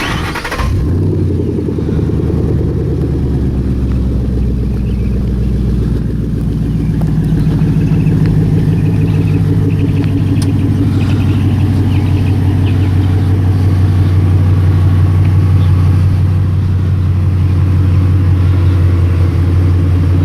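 Ford Mustang Boss 302's V8 engine idling, a steady deep exhaust note.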